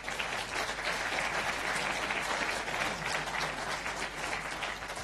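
Lecture audience applauding, a steady round of clapping from many hands.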